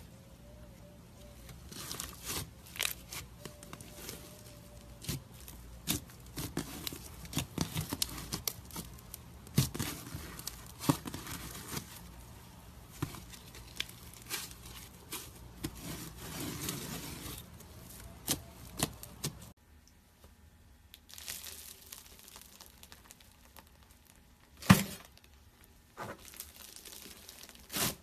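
Hands squeezing and stretching glitter slime, making irregular sticky crackles, clicks and pops. About two-thirds of the way through the sound drops off abruptly to quieter handling, with one loud sharp pop near the end.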